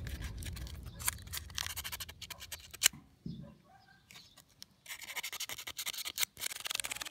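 Sandpaper scratching back and forth over the corroded metal connector pins of a Saeco coffee machine's flow meter, in short strokes, to clean off the corrosion. The sanding pauses for a couple of seconds about three seconds in, then starts again.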